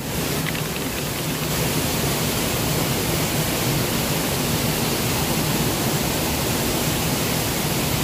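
Steady, even rush of a river and waterfall nearby.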